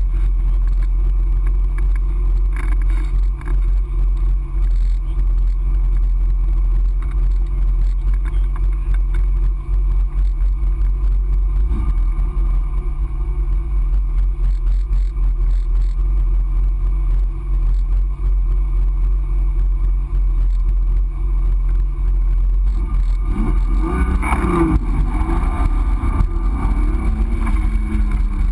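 Triumph TR6's fuel-injected straight-six engine running at a steady pitch, then revving up and down several times near the end.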